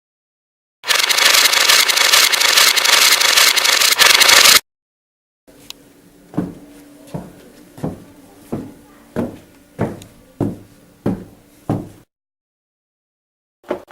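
Home-made sound effects: about four seconds of loud, dense crackling noise that stops abruptly, then after a pause a run of about ten evenly spaced knocks, roughly one every 0.7 s, each ringing briefly.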